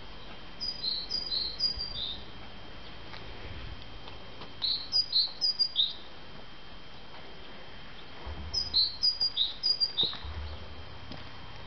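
Three bursts of high, bird-like chirping, each a quick run of short notes lasting about a second and a half, repeating the same pattern each time. A faint steady high whine runs underneath.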